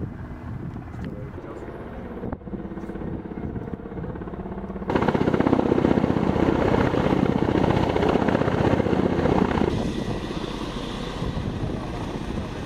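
Military helicopter rotors beating as a Mi-8-type helicopter approaches; about five seconds in the sound turns suddenly much louder and fuller with a Ka-52 coaxial-rotor attack helicopter passing low, easing somewhat about ten seconds in.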